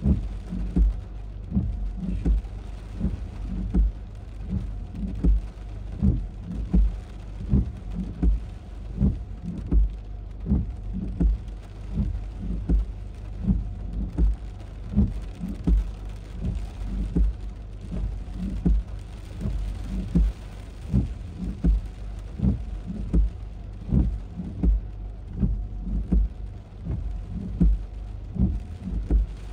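Regular low thumps, roughly two a second, keeping an even rhythm over a steady hiss.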